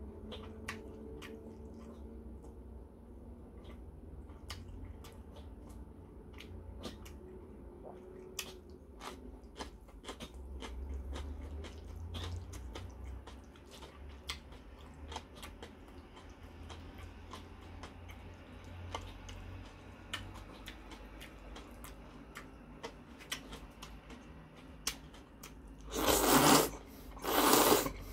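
A person eating jjajangmyeon noodles: small wet mouth clicks and smacks from chewing, then near the end loud slurping in a few bursts as a mouthful of noodles is sucked in.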